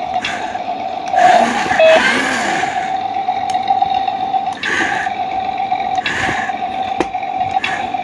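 Toy remote-control excavator's small electric motors whirring in short bursts as the boom and bucket move, over a steady high hum. The longest burst comes about a second in, with shorter ones later.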